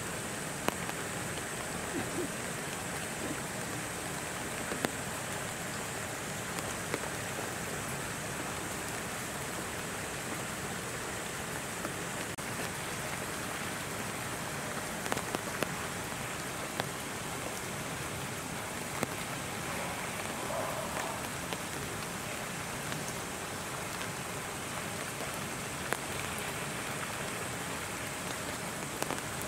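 Steady rain falling, with scattered sharp drips and taps throughout.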